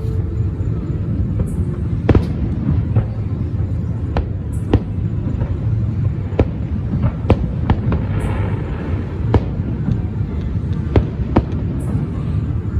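Fireworks show: about ten sharp bangs of aerial shells bursting at irregular intervals over a steady low rumble, with a brief spell of crackling about two-thirds of the way in.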